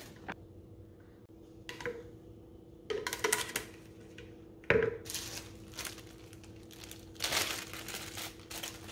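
Clear plastic zip-top bag crinkling as it is handled, with a few knocks of a plastic container on a granite countertop; the sharpest knock comes a little past halfway. A faint steady hum runs underneath.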